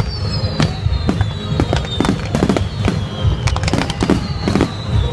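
Fireworks display: aerial shells bursting in rapid succession, several sharp bangs a second over a low rumble, with high tones sliding slowly downward.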